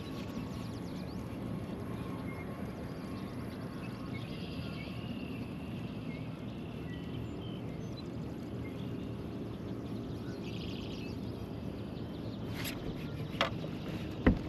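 Steady outdoor background noise on a fishing boat on a lake, with two short sharp knocks near the end.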